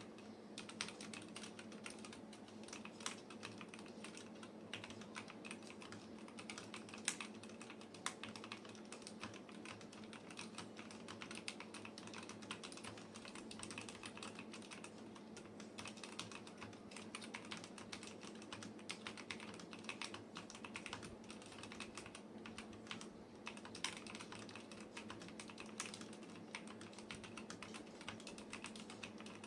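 Continuous typing on a mechanical keyboard with lubed Outemu Silver linear switches: a dense run of quick key clacks, with a few louder strikes standing out, over a faint steady hum.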